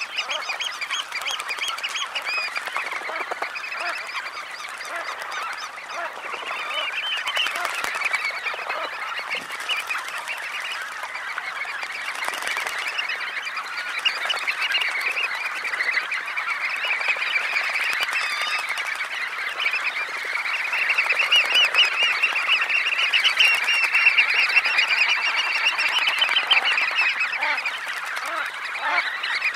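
A large flock of red knot calling, many short overlapping calls in a dense, unbroken chatter that swells louder about two-thirds of the way through.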